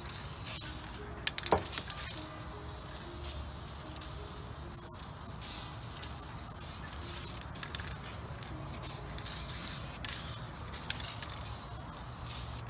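Aerosol can of black vinyl dye spraying in several bursts with short pauses between them. A single sharp knock about a second and a half in.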